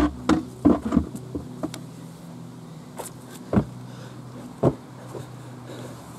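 Footsteps on a loose soil heap: a quick run of scuffs and thuds in the first second, then a few single thumps as the camera is handled, the last two about three and a half and four and a half seconds in.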